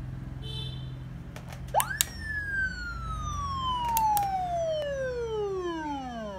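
Vietnamese '113' police siren giving one wail: about two seconds in it shoots up sharply in pitch, then falls slowly for about four seconds. Sharp clicks come just as it starts, over a low steady hum.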